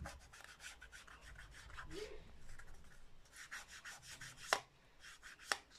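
A small ink applicator dabbed and rubbed along the edges of a paper card in quick, scratchy strokes, inking the edges. Two sharper taps come in the last second and a half.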